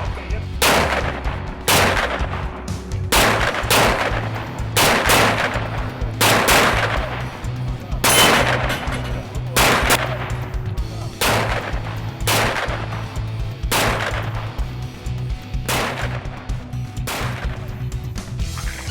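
Pistol shots fired one after another through a course of fire, about one a second with some quicker pairs, each with a short ringing tail.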